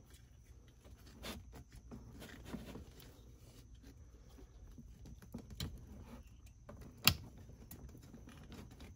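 Metal retaining clip on a clutch pedal pivot pin being pried off with a flathead screwdriver: faint scraping and small ticks of metal on metal, with one sharp click about seven seconds in.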